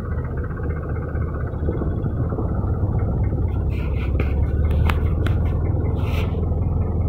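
A fishing boat's engine runs steadily underway with a continuous low drone. A few sharp knocks and short hisses come through in the second half.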